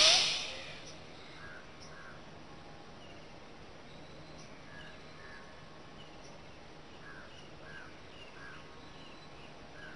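A forceful exhale at the very start as he bends forward pressing his belly, fading within about a second. Then faint outdoor ambience with a low hum, and a bird calling in short pairs of notes every second or two.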